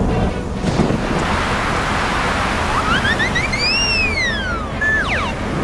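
Cartoon soundtrack with a steady rumbling noise under music, and a whistling tone that rises and then falls about three seconds in, followed by a couple of short falling tones near the end.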